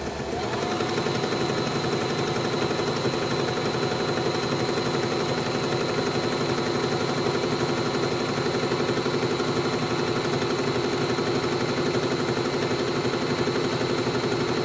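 Janome My Style 20 electric sewing machine running at a steady speed, its needle stitching in a rapid, even rhythm with a steady high motor whine. It is sewing a scallop decorative stitch.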